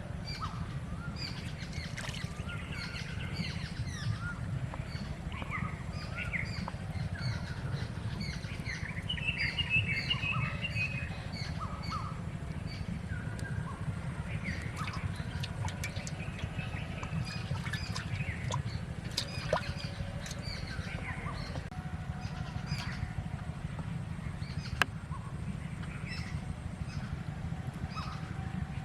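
Several small birds chirping and calling over and over, with a louder trilling call about ten seconds in, over a steady low rumble and a couple of sharp clicks.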